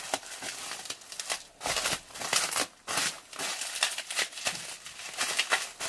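Bubble wrap being handled and wrapped around a product: plastic crinkling and rustling in irregular bursts with short pauses.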